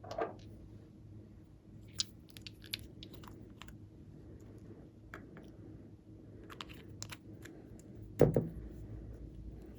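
Slime being handled and mixed by hand: scattered small sticky clicks and crackles, with one louder thump about eight seconds in.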